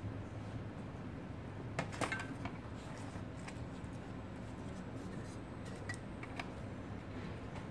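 Light metallic clinks and rattles of a car head unit's thin sheet-metal chassis being picked up and handled over its plastic frame, the loudest clatter about two seconds in, followed by a few scattered clicks. A steady low hum runs underneath.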